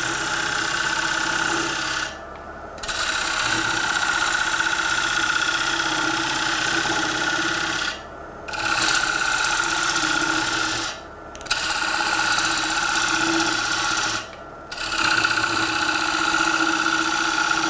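A turning tool cutting into a spinning ash bowl blank on a Record Power Coronet Herald lathe: a steady hissing, rasping cut as shavings come off while the centre is hollowed out. The cut breaks off four times for about half a second as the tool leaves the wood, and the lathe keeps running underneath.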